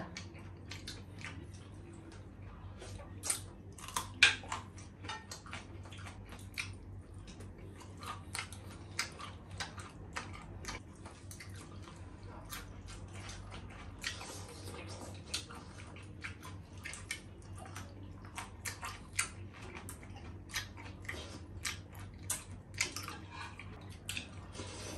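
Close-miked eating sounds: wet slurping of miswa noodle soup off plastic spoons and chewing, with many small irregular clicks and smacks over a low steady hum.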